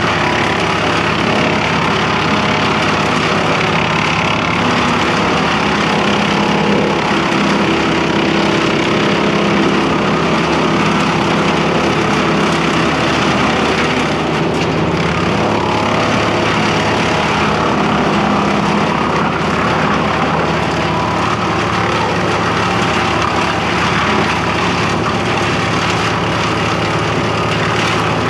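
Tow-behind wood chipper's engine running at a steady speed.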